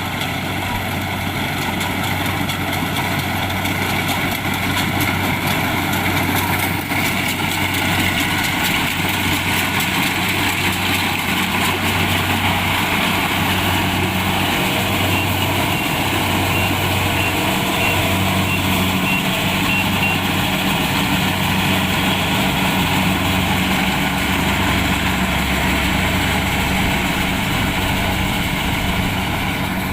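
Kubota DC-70 Plus rice combine harvester's diesel engine and machinery running steadily.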